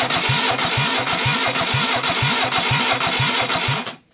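Starter motor cranking a Reliant Fox four-cylinder engine that turns over without firing: a steady whine over an even chugging of about six compression pulses a second, stopping just before the end. It is being spun for a compression test of cylinder 4, on a battery that is getting weak.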